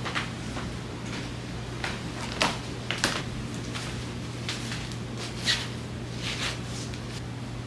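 Handling sounds of packing: brief rustles and light knocks of items being picked up and set down, about seven over a few seconds, the loudest about two and a half, three and five and a half seconds in, over a steady low hum.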